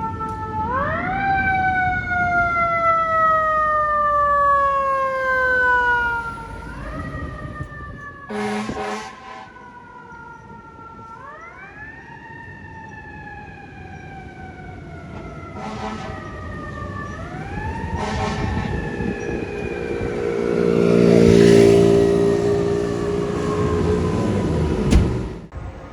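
FDNY fire apparatus siren wailing: the pitch jumps up quickly and then slides slowly down, repeating about every five seconds. An air horn blasts briefly about eight seconds in and again, longer and loudest, a little past twenty seconds. The sound cuts off abruptly near the end.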